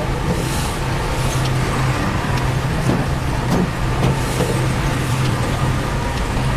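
Heavy construction machine's diesel engine running steadily, with a few faint clicks.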